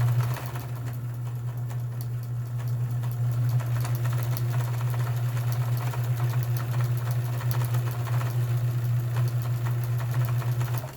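Kenmore 158.1781 sewing machine running steadily while sewing a decorative stitch: a motor hum with rapid needle-stroke ticks, stopping abruptly at the end.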